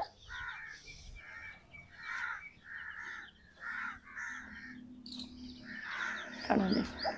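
A crow cawing repeatedly, a string of about eight short harsh calls in a row.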